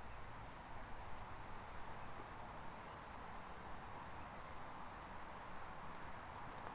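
Steady, faint outdoor background noise with no distinct events, and a few faint high chirps now and then.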